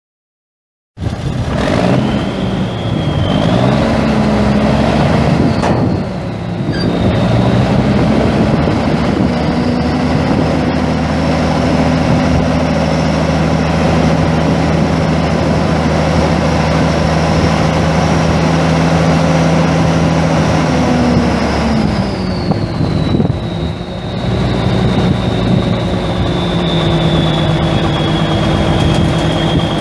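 Cummins N14 inline-six turbo diesel running in a 1989 International F-9370 dump truck. It begins abruptly, holds a raised, steady speed with a brief dip, then drops to a lower, steady speed near the end, with a high whine that rises and falls along with it.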